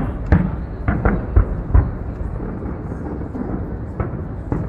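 Aerial fireworks going off: a quick run of deep booms in the first two seconds, then two more near the end, over a steady rumble.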